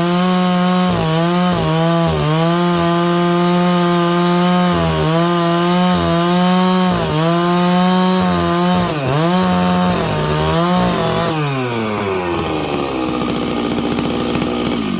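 Stihl 660 two-stroke chainsaw with a 36-inch bar running at full throttle while ripping lengthwise through a dry larch log, its pitch dipping again and again as the chain bogs under load. Near the end the throttle is let off and the engine speed falls away.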